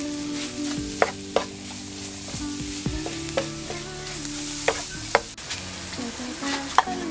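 Egg, sausage, corn and onion sizzling in a non-stick frying pan while a spatula stirs and scrapes through it, with several sharp clacks of the spatula against the pan.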